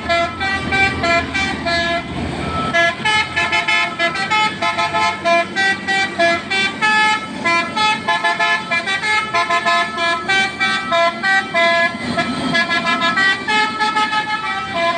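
Dump truck's telolet basuri musical air horn playing a rapid melody of short, changing-pitch toots, one note after another without pause.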